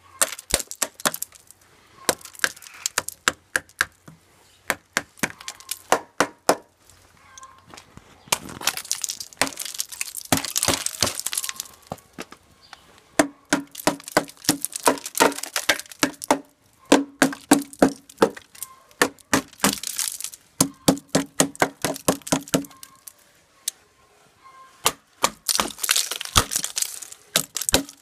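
Metal hand tools, a wrench and pliers, rapidly tapping and knocking thick ice off a frozen motorcycle's frame, shock absorber and wheel hub, the ice cracking and breaking away with clinks. The taps come several a second in bursts with short pauses.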